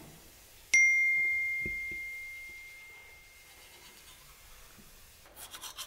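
A single bell-like ding about a second in: one clear high tone that rings out and fades over about three seconds. Faint quick clicking follows near the end.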